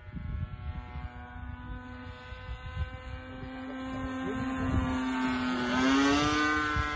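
Gasoline-converted Irvine 60 single-cylinder two-stroke engine of a radio-controlled Decathlon model plane, buzzing steadily in flight. It grows louder as the plane comes close, and its pitch rises about three-quarters of the way in, then holds higher.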